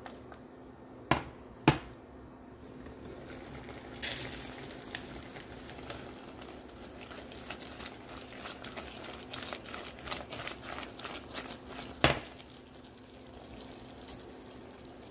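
Peach slices simmering in their syrup in a stainless steel pot, bubbling with many small pops. There are sharp knocks twice about a second in and once, loudest, near the end.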